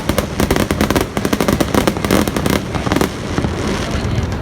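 Fireworks bursting in a rapid, dense barrage of bangs and crackles that thins out near the end.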